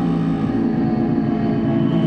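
Modular synthesizer drone: dense sustained low tones over a gritty, flickering low end, with a higher tone slowly gliding downward.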